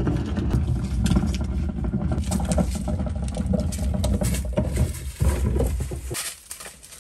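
Wheeled plastic trash bin rolled up a concrete driveway: a steady rumble of its wheels with rattling clatter from the bin, stopping about six seconds in when it is parked.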